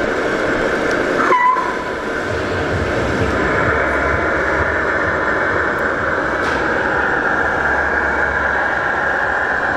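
Steady whine of a model vehicle's small electric drive motor running as it moves off, over a constant hall background, with a short sharp squeal about a second in.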